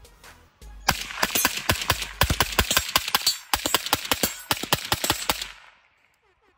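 Daniel Defense PDW rifle in 300 Blackout firing a rapid string of shots, about five a second, as a magazine dump. It breaks off briefly about three and a half seconds in, then runs on for two more seconds and stops.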